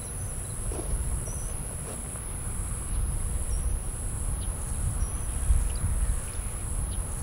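Outdoor insect ambience: a steady high-pitched drone of insects, with a few short high chirps and a low rumble underneath.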